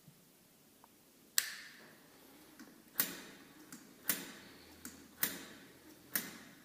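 Five sharp clicks about a second apart, each with a short ringing tail, with a few fainter ticks between them.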